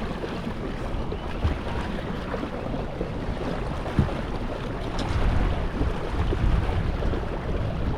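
A boat under way: wind buffeting the microphone over rushing water, with a short thump about four seconds in. It grows louder from about five seconds in.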